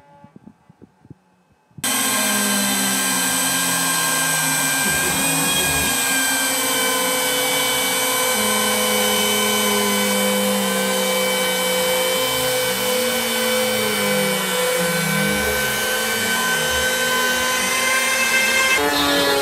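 CNC router carving a wooden sign: the router spindle runs with a steady high whine. It starts suddenly about two seconds in, and lower tones slide up and down beneath it as the machine moves through the cut.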